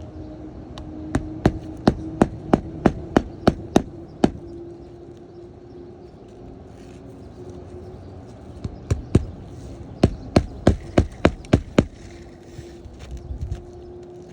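Hammer driving roofing nails through an asphalt shingle: a quick run of about ten strikes, a pause of a few seconds, then another run of about ten strikes.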